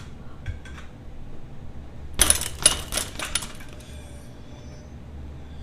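A quick run of sharp metallic clinks and rattles lasting about a second, starting about two seconds in, with faint high ringing after: small metal parts knocking together.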